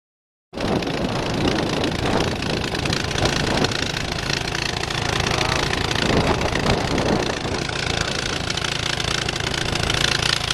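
A gasoline engine running steadily, loud and close, with a constant low hum; it cuts in abruptly about half a second in.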